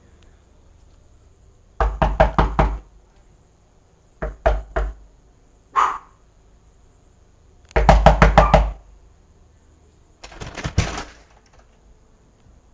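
Five short bursts of rapid knocking, about six knocks a second. The fourth burst is the loudest and the longest.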